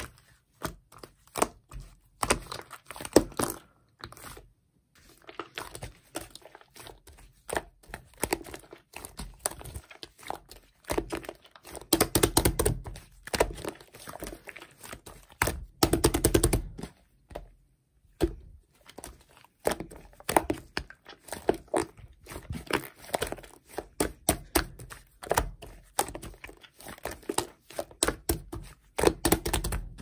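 Soft clay being kneaded, squeezed and pressed flat by hand, giving irregular sticky clicks, crackles and soft thuds. There are denser stretches of crackling about 12 and 16 seconds in.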